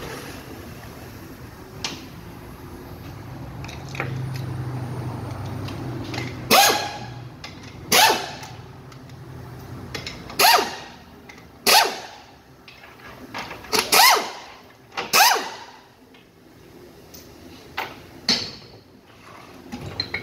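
Pneumatic wrench on a shop air line running in about seven short bursts, each spinning up and winding down, as it backs out the bolts holding the extension housing on a Chevrolet 4L60-E automatic transmission.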